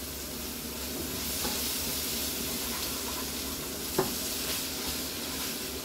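Cod and shrimp sizzling steadily in a frying pan, stirred with a wooden spatula that knocks once against the pan about four seconds in.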